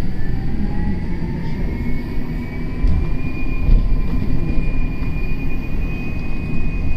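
Bus accelerating, a high whine rising slowly and steadily in pitch over a low rumble, sounding like an aeroplane.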